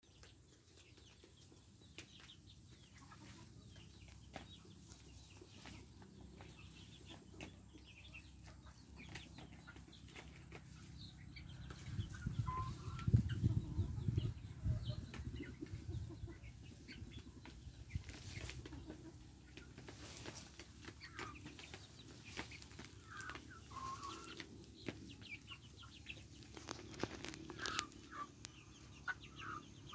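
Young chickens peeping and clucking now and then in short calls, more often in the second half. A low rumble about midway is the loudest sound.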